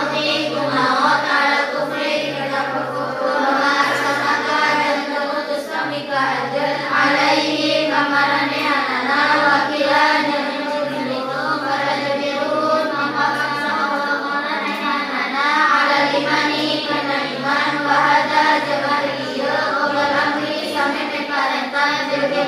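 Many girls' voices chanting a recitation together in unison, a continuous sung melody that runs without a break.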